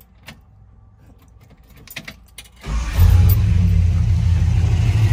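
A few light clicks of the ignition key, then about two and a half seconds in the car's V8 catches after a brief crank and settles into steady running. It is running on only one set of points of its dual-point Mallory distributor, the other set blocked open with cardstock.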